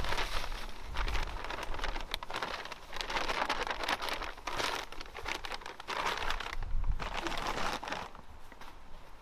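Irregular dry rustling and crinkling of loose material being handled and shifted, with scattered small clicks, tailing off near the end.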